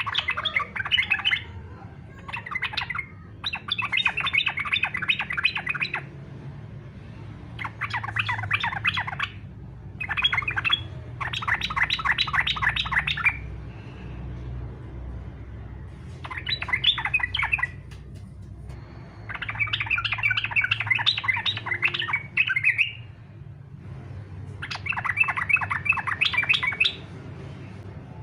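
Yellow-vented bulbul (trucukan) singing in aggressive 'fighter' style: bursts of rapid chattering notes, each one to two seconds long, repeated about eight times with short pauses, over a low steady hum.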